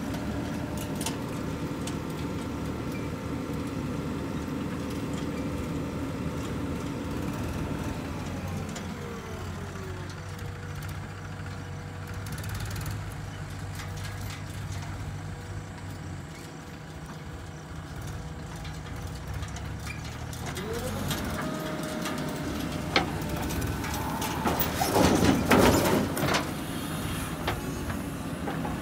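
Diesel engines of a JCB 3DX backhoe loader and a Mahindra tractor running steadily. The revs drop about eight seconds in and rise again around twenty seconds in. Near the end there is a loud, noisy, clattering burst.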